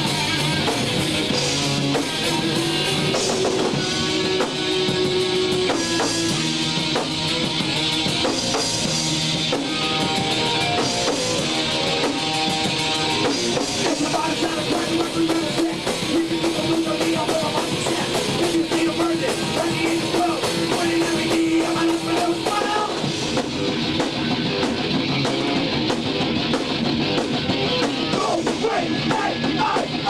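Hardcore thrash punk band playing at full volume: distorted electric guitars driving over a fast drum kit, with a vocalist singing into a microphone.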